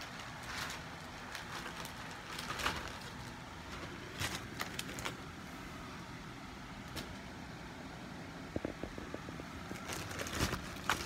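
Handling noise: scattered clicks and rustles of plastic bait bags being moved near the phone, over a steady low rumble.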